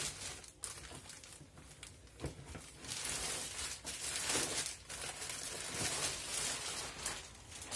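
Clear plastic packaging bag crinkling and rustling in uneven bursts as a fabric-covered foam pouf-mattress is pulled out of it.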